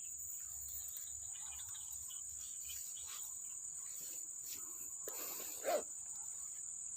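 Steady high-pitched chorus of insects, crickets or similar, shrilling without pause. A brief louder sound rises over it about five and a half seconds in.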